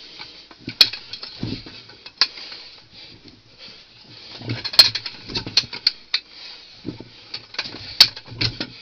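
Hand-turned bucket auger on jointed steel extension rods grinding and scraping through hard clay at the bottom of a deep bore hole, with irregular sharp metallic clicks and clinks as the rods are twisted.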